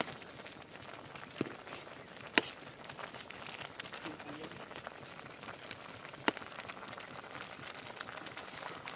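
A pot of Maggi noodles boiling over a wood fire: a steady fizzing crackle full of small ticks. A metal ladle clinks sharply against the pot a few times, loudest about two and a half and six seconds in.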